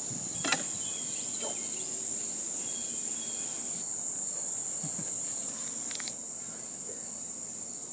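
Steady high-pitched insect chorus outdoors, with a couple of faint knocks, about half a second in and again near six seconds.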